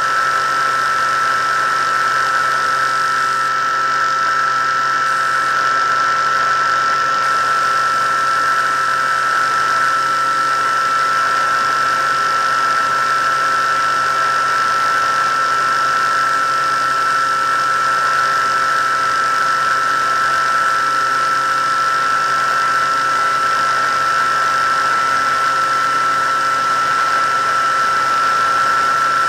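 Electric motor and propeller of an FPV aircraft, heard through its onboard camera, running at a steady cruising speed: an unchanging high whine with a hiss of air over it.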